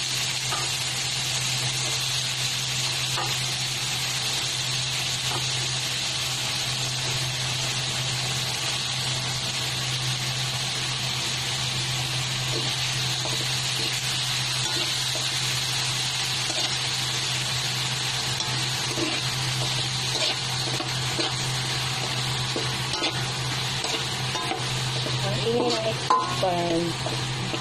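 Chopped garlic, onion and tomato sautéing in hot oil in a metal wok: a steady sizzle, with a spatula stirring and scraping against the pan now and then. A low steady hum runs underneath.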